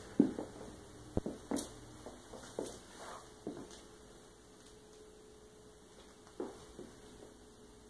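Quiet indoor room tone with a faint steady hum and a few scattered soft taps and knocks.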